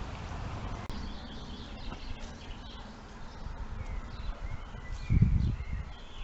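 Small birds chirping and singing in short, high notes, over a steady low rumble, with a brief louder low thump about five seconds in.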